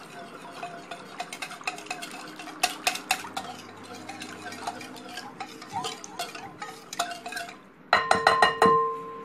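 Wire whisk stirring a thin liquid mixture in a ceramic bowl, with continual light clinking and scraping of the wires against the bowl. About 8 seconds in comes a quick run of louder, sharp clinks that ring, as the whisk is knocked against the bowl.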